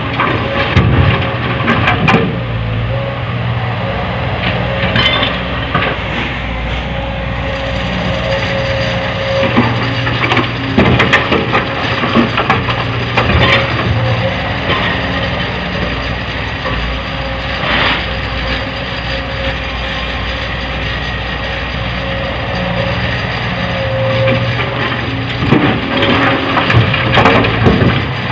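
Heavy diesel machinery running steadily while an excavator loads soft rock into a dump truck: irregular crunching knocks and scrapes of rock being dropped and raked, with clusters of them about a second in, around the middle, and near the end.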